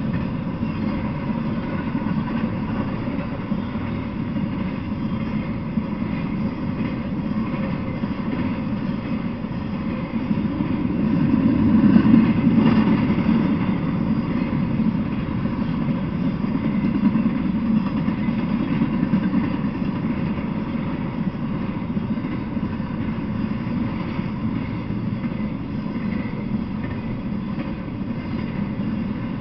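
Freight train of empty flatcars rolling past on the rails: a steady rumble of wheels on track, swelling louder about twelve seconds in.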